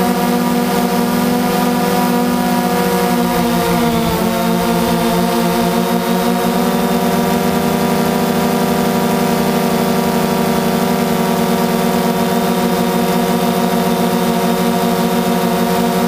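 DJI Phantom 2 quadcopter's propellers and electric motors buzzing steadily, heard close from on board the drone, with a brief shift in pitch about four seconds in as the motors change speed.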